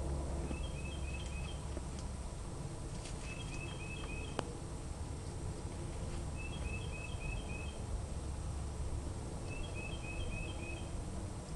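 A low steady rumble of outdoor background noise, with a bird repeating a quick run of four or five short chirps about every three seconds. A few faint clicks are heard.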